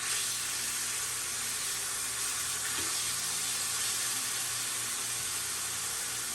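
Pieces of chicken thigh frying in hot oil: a steady sizzle.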